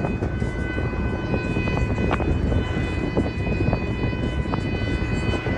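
Car horn held down in one long unbroken blast, over the steady rumble of road and engine noise from a moving car.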